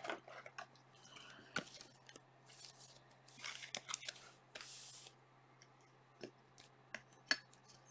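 Faint rustling, scraping and small clicks of plastic as a trading card is handled in its clear plastic sleeve and holder, over a low steady hum.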